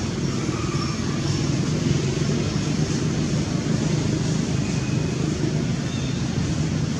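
Steady low rumble of background road traffic, with a couple of faint short high chirps in the second half.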